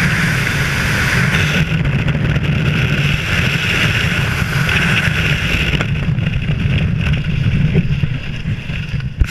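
Freefall wind rushing over a skydiver's helmet-mounted camera microphone, a loud steady noise that eases off near the end once the parachute has opened.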